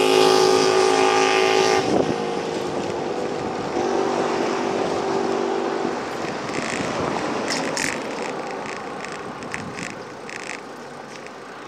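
Street traffic heard from a moving bicycle: a motor scooter's engine hum passes close by and cuts off about two seconds in, and another engine hum follows briefly. After that come steady road and wind noise that grow quieter, with light clicks and rattles near the end.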